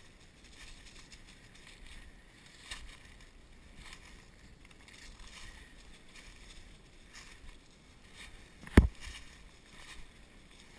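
Footsteps and brush rustling as someone walks through dry leaves and undergrowth, with one sharp crack near the end, much the loudest sound.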